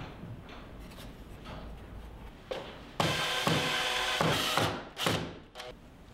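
Makita cordless drill driving a screw to hang a wooden kennel door on its hinges, running steadily for about a second and a half midway. Quieter handling sounds come before it, and two short scraping noises follow near the end.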